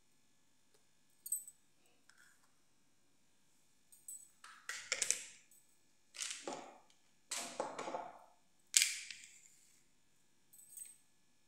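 Miniature wooden dollhouse furniture, a dressing table and a bed, being set down and moved about on a tiled floor: a scattering of sharp clacks with short scraping rustles, the loudest clack about nine seconds in.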